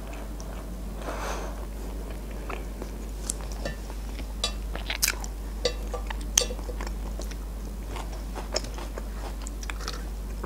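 Close-up chewing of a KFC crispy chicken burger, with many small wet crunches and clicks as the breaded fillet and bun are chewed.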